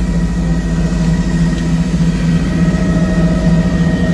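Helicopter cabin noise in flight: a steady engine and rotor drone with a fast low pulsing and a thin, steady high whine.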